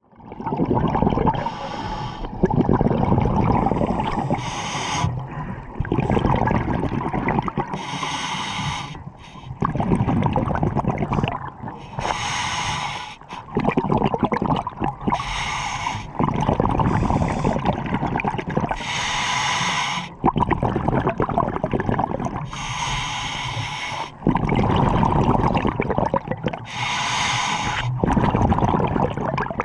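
Scuba diver breathing through a regulator: a hiss of inhaling alternates with gurgling bursts of exhaled bubbles, about one breath every three to four seconds.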